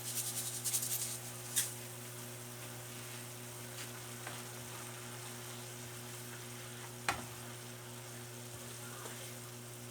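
Sweet and sour sauce heating in a pan with a faint, steady sizzle as it is seasoned and stirred. A quick run of light ticks in the first second, then a few sharp taps, one about seven seconds in.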